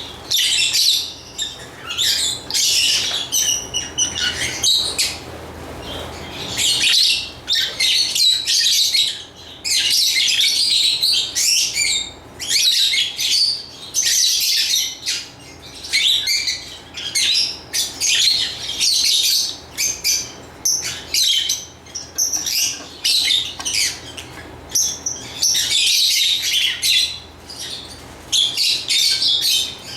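Lovebirds chirping and squawking in quick, high-pitched runs of calls with brief gaps.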